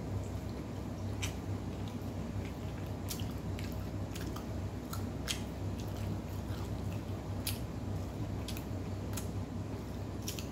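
Close-up chewing and tearing of Arabic flatbread (khubz), with scattered small crackly clicks over a steady low hum.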